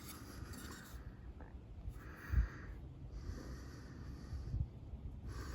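A person breathing audibly, a few breaths in and out, with one soft low knock about two and a half seconds in.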